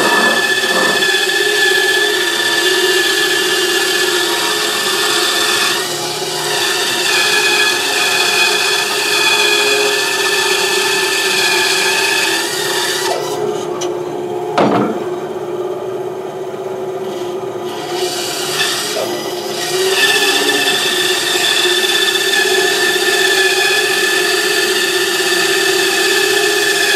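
Bandsaw running with its blade cutting through a wooden vase blank, a steady hum under a rasping cutting noise. The cutting noise drops away for a few seconds around the middle, with a single knock, then the blade bites into the wood again.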